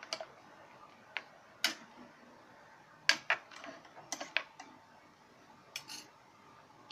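Metal ladle clinking against the side of an aluminium pressure-cooker pot while a coconut-milk sauce is stirred: about ten sharp, irregular clinks, several bunched together around the middle.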